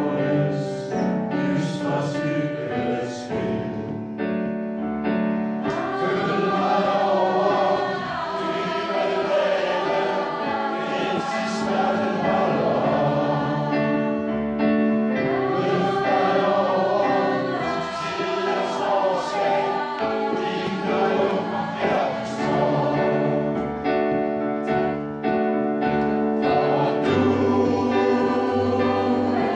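Background music: a choir singing slow, long-held notes.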